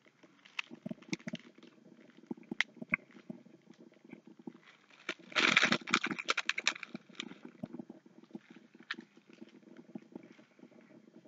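Foil Pop-Tart wrapper crinkling and crackling as it is handled, loudest for about a second and a half midway, with scattered small crackles and chewing around it.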